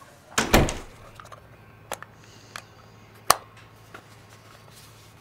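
A heavy thump about half a second in, then a few sharp plastic clicks spread over the next three seconds, as hands fit batteries and the back cover into a portable radio.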